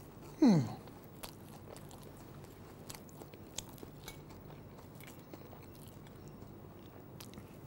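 A man chewing a mouthful of crumb-coated fried fish, with faint crunches and light clicks of a fork against a plate as he cuts more. About half a second in comes a short, falling 'mmm'.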